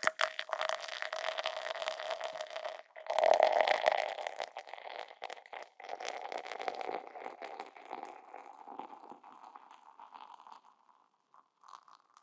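Beer being poured into a glass, gurgling. The pour breaks off for a moment about three seconds in and starts again, then tails off into the fizz and crackle of the foam, fading out near the end.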